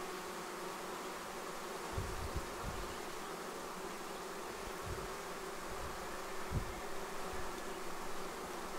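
A swarm of honey bees buzzing in a steady hum while it moves into a nucleus hive, with part of the swarm still clustered outside the entrance.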